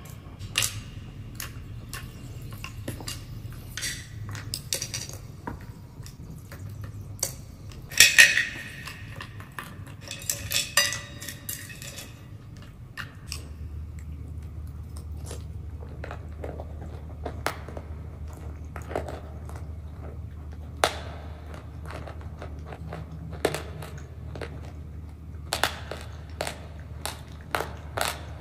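Close-up eating sounds: a metal spoon clinking and scraping in a bowl of thick, soft mixture, with chewing and mouth sounds in between. There are many sharp clicks, most of them in a busy run about a third of the way in.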